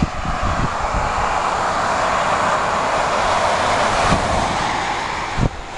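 A vehicle passing on the wet road, its tyre hiss swelling through the middle and fading away near the end.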